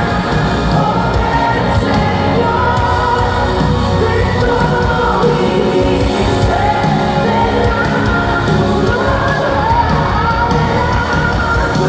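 Live band music with a woman singing the lead into a microphone, as heard from within the concert audience.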